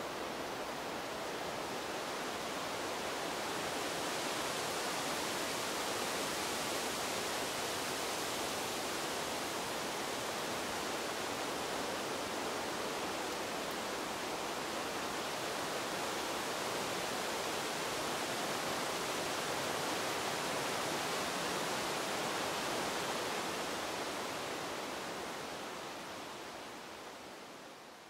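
Wind blowing through trees: a steady rush of wind in the leaves that fades out near the end.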